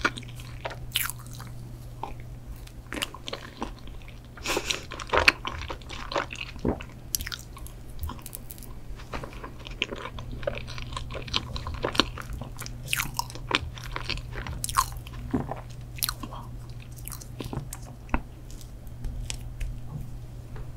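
Close-miked chewing and biting of chocolate mousse cake and ice cream: many irregular mouth clicks and small crunches, over a steady low hum.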